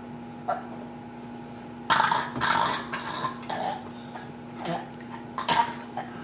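A person burping: one long, drawn-out burp starting about two seconds in and lasting nearly two seconds, with a few shorter sounds before and after it.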